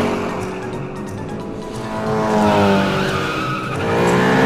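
Cartoon race-car engine sound effects revving, with the pitch falling and then climbing again, plus tyre squeal, over background music.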